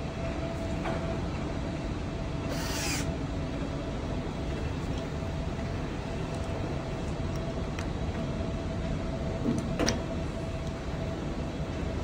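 Steady low rumble of outdoor background noise with a faint constant hum, a short hiss about two and a half seconds in, and a sharp click near ten seconds.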